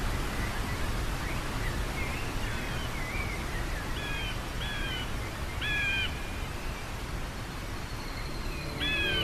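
Steady rushing of a waterfall, with bird calls over it. A few faint chirps come in the first seconds, then four louder arching cries spread from about four seconds in.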